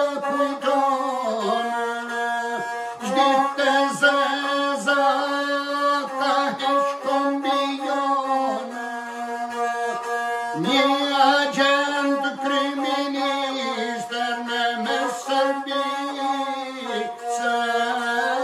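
A man singing an Albanian epic song to the lahuta, the one-string bowed fiddle. He holds long, wavering notes that slide between pitches over the lahuta's bowed line, with short breaks every few seconds.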